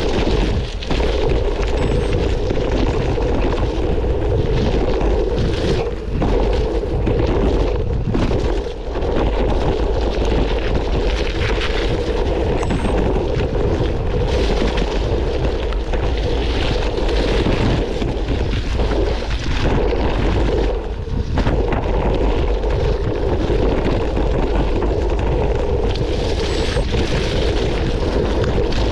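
Mountain bike descending fast over a rocky, muddy trail: loud wind rush on the camera microphone, tyres rolling over stones, and the frame and parts rattling with many short knocks over bumps.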